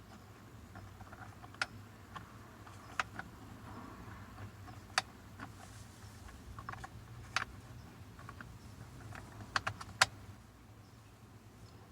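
Sharp metallic clicks and taps at irregular intervals, the loudest about ten seconds in, from an 8 mm Allen key working a steering-wheel bolt loose. A low steady hum runs underneath.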